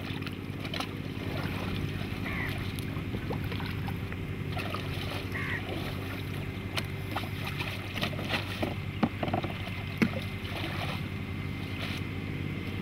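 Riverside ambience: a steady low drone runs under the scene while a man handles a styrofoam raft in shallow water, giving scattered knocks and splashes, two sharper ones about nine and ten seconds in. A couple of faint bird chirps come through early on the high end.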